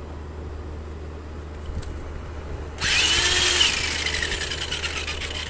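Corded electric drill switched on about three seconds in, spinning a square canvas fixed to its chuck. Its whine rises briefly, then falls slowly as the level eases off.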